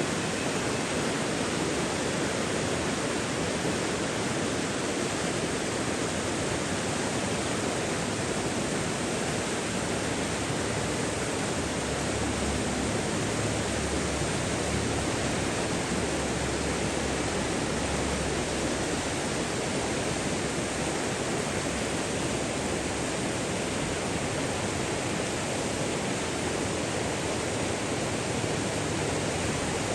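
Running water rushing steadily, an even unbroken hiss with no separate splashes or events.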